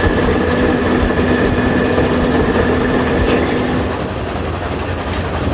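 Steam locomotive 464.202 running at speed, with rushing and clattering train noise, while a steady droning note from the NOHAB M61 diesel locomotive running alongside on the parallel track sounds until about four seconds in, then stops.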